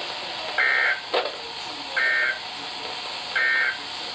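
Emergency Alert System SAME digital data bursts: three short, identical buzzy two-tone chirps about 1.4 seconds apart over radio hiss. Coming after the spoken warning, they are the end-of-message code that closes the alert.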